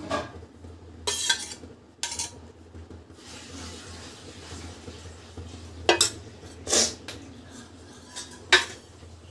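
Metal kitchen utensils and cookware clinking and knocking, about five sharp clinks spread over several seconds, over a faint steady low hum.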